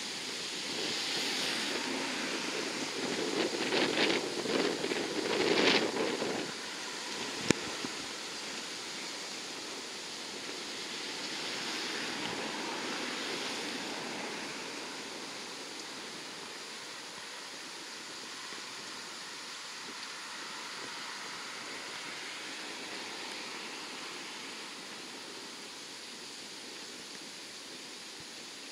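Lockheed P-3B Orion's four Allison T56 turboprops at takeoff power: a crackling roar, loudest in the first six seconds, that swells again briefly and then slowly fades as the aircraft climbs away. One sharp click about seven seconds in.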